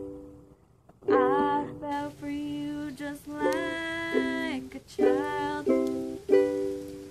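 Campfire singalong: a strummed acoustic string instrument with one voice singing. It starts after a brief lull about a second in.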